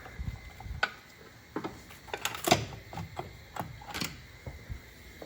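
Hand tools clicking and clinking on metal in an irregular series of light knocks, roughly one every half second, as the water pump is being unbolted from the engine.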